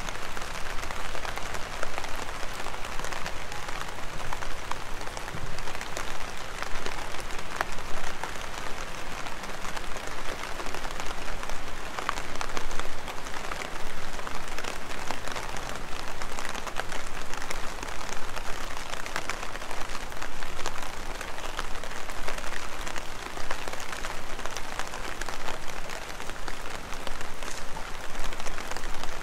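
Heavy rain falling steadily: a dense, even patter of many small drops.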